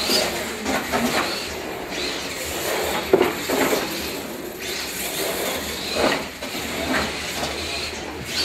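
R/C monster trucks' electric motors whining, rising and falling in pitch with the throttle as the trucks race, with the hiss of tyres on the floor. A sharp knock about three seconds in.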